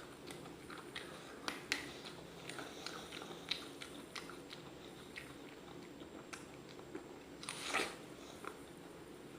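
Chewing raw apple close to the microphone: a run of small, sharp crunches and wet clicks, with one louder crunch about eight seconds in.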